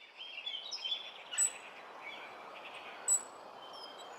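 Birds singing and chirping over a soft steady hiss, with two sharp, high chirps standing out, about a second and a half in and again about three seconds in.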